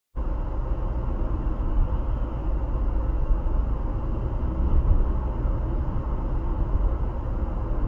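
Steady road and engine noise inside a moving car, picked up by a dash cam's microphone, heaviest in the low rumble. It starts suddenly and cuts off suddenly.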